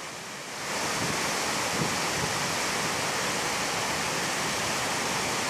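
Waterfall in full flood after heavy rain: a muddy torrent pouring down the falls and rushing past, a steady rush of water that grows louder about half a second in and then holds level.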